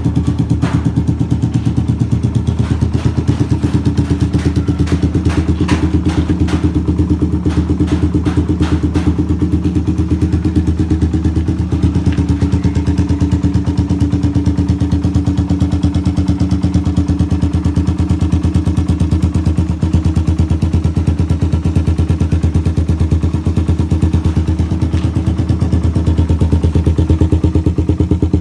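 Suzuki Raider 150's stock carburetted single-cylinder four-stroke engine idling steadily, with a rapid even pulse and some light clicks during the first several seconds.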